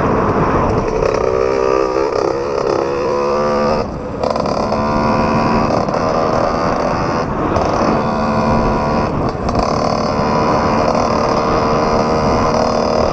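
Dirt bike engines running and revving on an off-road trail, the pitch rising and falling over the first few seconds, with a brief drop in level about four seconds in before a steadier drone.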